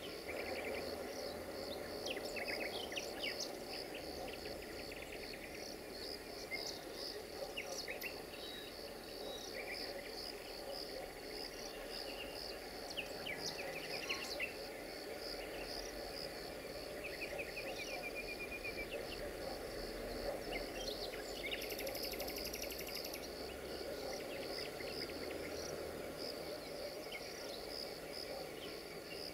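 Crickets chirping in a steady, pulsing chorus with scattered bird chirps. Under them is a low, steady rumble from a distant approaching LDE2100 (060-DA) diesel-electric locomotive.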